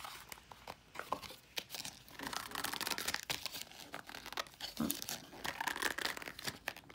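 Cardboard packaging rustling, crinkling and scraping as a tight-fitting deck of playing cards is worked out of its box by hand, with many small clicks and taps.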